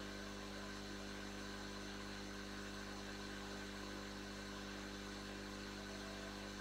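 Metcal HCT-900 hot air rework station running steadily and quietly: a small mains-frequency hum from its diaphragm pump running at 50 Hz, with the airflow hiss through the handpiece.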